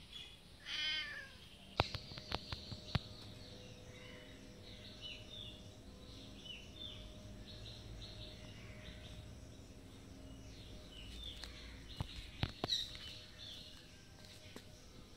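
A domestic cat meows once, about a second in, a single call that rises and falls. Birds chirp in the background after it, with a few sharp clicks around two to three seconds in and again near twelve seconds.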